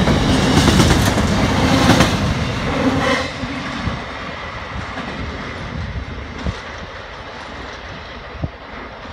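Container freight train's wagons rolling past close by on the track. About three seconds in the sound drops suddenly to the quieter, fading sound of the train moving away.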